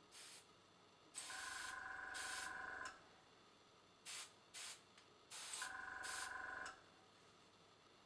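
Dual-action airbrush spraying paint in hissing bursts: a brief puff at the start, a long spray about a second in, two quick puffs around four seconds, and another long spray near six seconds. During the two long sprays a small tankless compressor runs with a low hum and a steady whine.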